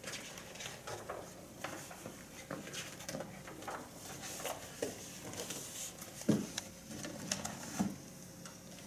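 Pages of a large paperback picture book rustling and flapping as it is opened and handled, with a few soft knocks, the loudest about six seconds in.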